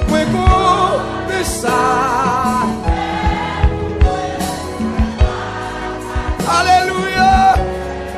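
Haitian Creole gospel song: voices singing with vibrato over a band with a steady drum beat.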